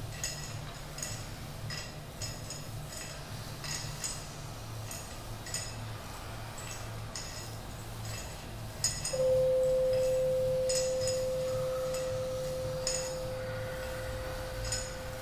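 Quiet experimental ensemble performance: soft scattered clicks and light taps of small objects over a low steady hum, then a single pure ringing tone that starts abruptly about nine seconds in and slowly fades.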